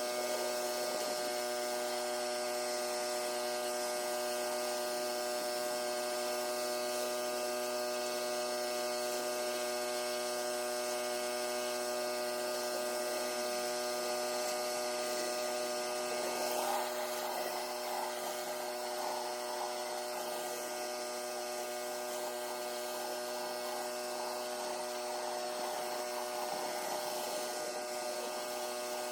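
Pressure washer running at a steady speed with a constant droning hum. A rougher noise joins a little past halfway.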